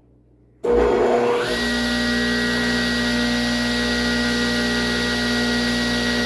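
Table saw switched on about a second in, its motor spinning up to speed within a second and then running steadily with an even whine, the blade turning free before the cut.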